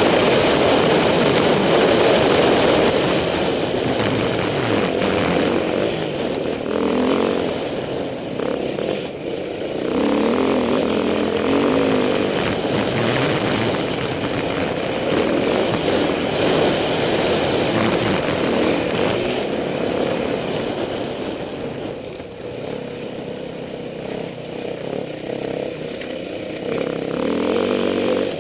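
Yamaha WR450F single-cylinder four-stroke trail bike engine being ridden, heard close up from a helmet camera. The engine note rises and falls with the throttle and eases off for a few seconds about three-quarters of the way through.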